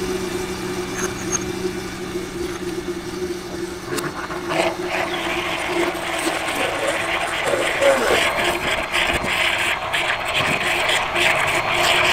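Countertop electric blenders running: a steady motor hum, joined about halfway by a louder whirring hiss of juice being blended.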